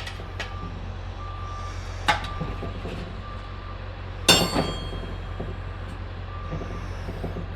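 Steel tire irons clicking and clanking against a motorcycle wheel rim while a stiff tire bead is levered over it, with one loud ringing metal clank about halfway through. A short electronic beep sounds about once a second over a steady low hum.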